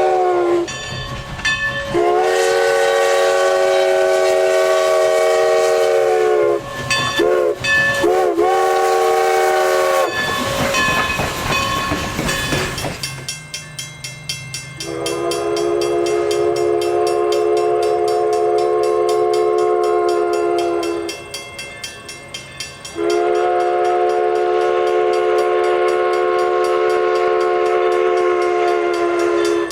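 Multi-chime steam locomotive whistle blowing a chord. It gives a long blast of about four seconds, two short toots that bend in pitch, then two long blasts of about six seconds each. Between the toots and the long blasts, about three seconds of rushing noise.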